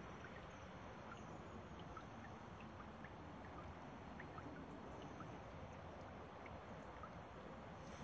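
Faint, steady outdoor background hiss by open water, with a few tiny faint ticks scattered through it.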